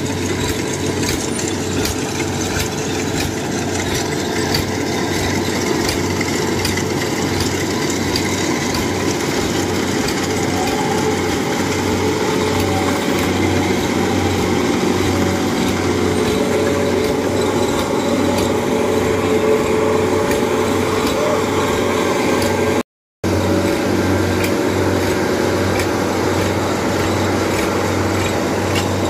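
Tracked rice combine harvester running steadily, its engine hum pulsing evenly under a constant mechanical clatter from the working machine. The sound breaks off for a moment about three quarters of the way through.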